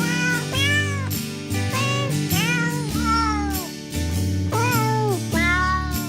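Domestic cat meowing repeatedly, about six drawn-out, falling meows, over background music.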